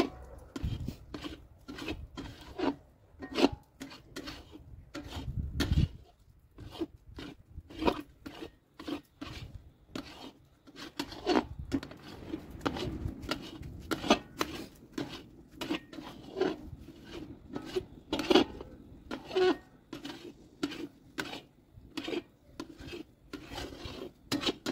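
Long metal spatula scraping and stirring thick reduced milk around a metal kadhai: a run of rasping strokes, a couple each second. The milk has cooked down to a stiff khoya paste, and the scraping keeps it from sticking and burning on the pan.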